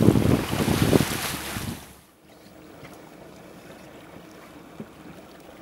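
Wind buffeting the microphone and sea water rushing past the hull of a sailboat under way. It cuts off suddenly about two seconds in, leaving only a faint, steady background hush.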